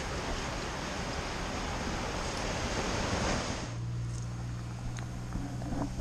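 Ocean surf churning and washing into a narrow rocky inlet, with wind on the microphone. About three and a half seconds in it cuts off abruptly to a quieter steady low hum.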